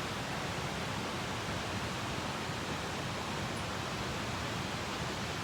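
A large waterfall running high with mountain snowmelt runoff: a steady, even rush of falling water.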